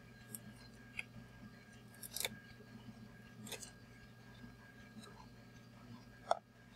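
A handful of short, faint scissor snips and clicks as scissors work into the fur of a plush singing dog toy, over a steady faint hum.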